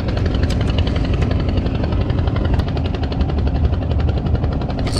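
An engine running steadily with a fast, even chugging beat.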